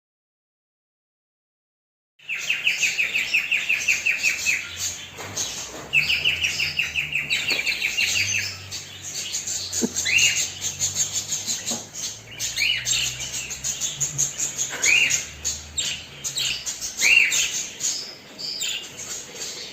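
A bird chirping. It starts about two seconds in with fast, even runs of repeated chirps, then gives several separate upward-sweeping call notes.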